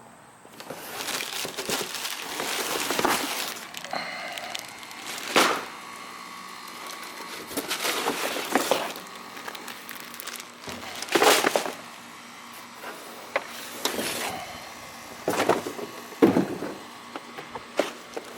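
A cardboard box being opened and the floor liners inside lifted out: irregular rustling and scraping of cardboard and plastic with several sharp knocks.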